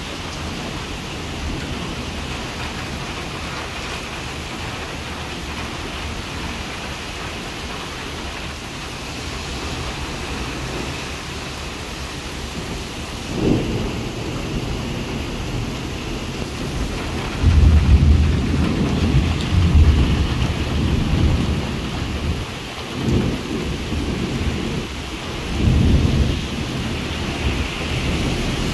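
Heavy rain falling in a thunderstorm, a steady hiss throughout. About halfway through there is a sudden loud burst, then several low rumbles of thunder come over the last ten seconds or so.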